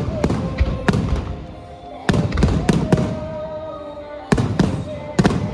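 Aerial fireworks shells bursting: about a dozen sharp bangs in three quick clusters, with music playing underneath.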